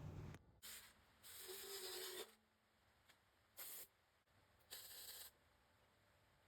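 Flux-core welder laying short pulse tack welds on thin 22-gauge sheet metal: four separate bursts of arc hiss, the second about a second long and the rest shorter, with pauses between. Each pulse is kept brief so the thin sheet does not burn through.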